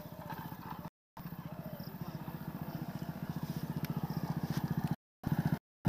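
An engine running with a rapid, even beat that grows gradually louder. The sound cuts out briefly three times.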